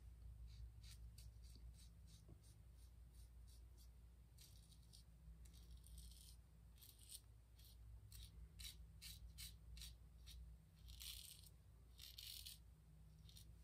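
Faint scratching of an Ever Ready 1914 single-edge safety razor scraping through lather and stubble in short strokes, a few a second, with two longer strokes around the middle and near the end, during a third shaving pass. A faint low hum runs underneath.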